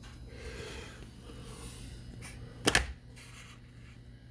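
A single sharp knock a little under three seconds in, over a steady low hum.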